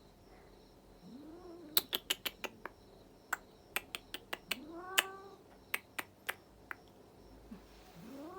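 Domestic cat meowing three times, short calls that rise then fall in pitch, with a run of sharp irregular clicks in between.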